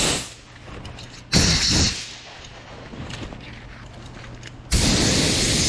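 Compressed air from a blow gun fired into a freshly repaired brass rotating sewer-jetter nozzle to test it: a short blast at the start, a second hissing blast about a second and a half in, then a steady rush of air through the nozzle from near the end.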